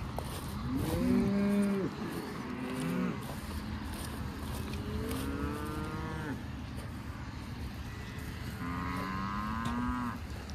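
Beef cattle mooing: four drawn-out calls, the first, about a second in, the loudest.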